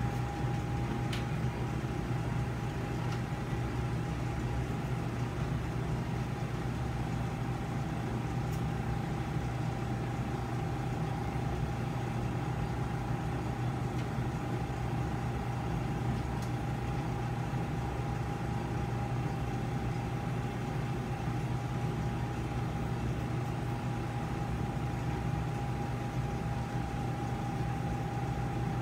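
Steady low hum of operating-room equipment running, with a constant whine above it and a few faint ticks.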